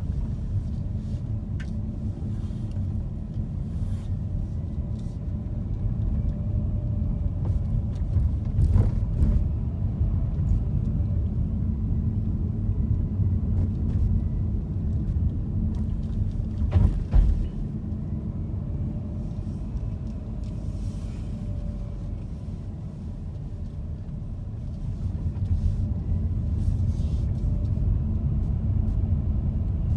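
Car driving, a steady low engine and road rumble heard from inside the cabin, with a couple of brief knocks, once about a third of the way through and once a little past the middle.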